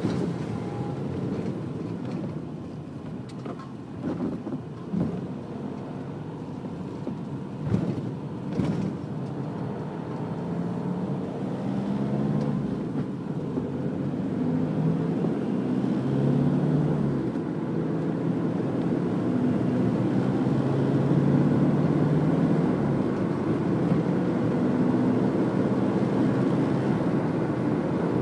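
A car driving, with engine and road noise heard from on board. The engine note rises and falls with speed, and there are a few short knocks or bumps in the first nine seconds. It gets steadily louder through the second half.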